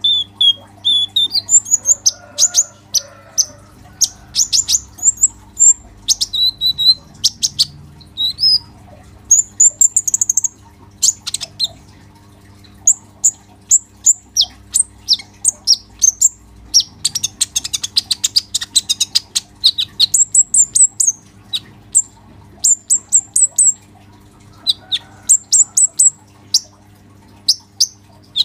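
Male purple-throated sunbird (kolibri ninja) singing non-stop in a rapid chatter of sharp, high chirps and short trills. A dense, very fast trill comes about two-thirds of the way through.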